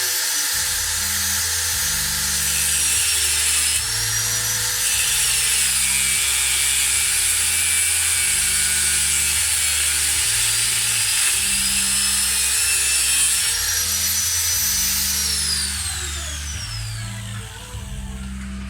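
A high-speed power tool runs with a steady whine, then is switched off about three-quarters of the way through and winds down, its pitch falling. Background music with a stepping bass line plays underneath.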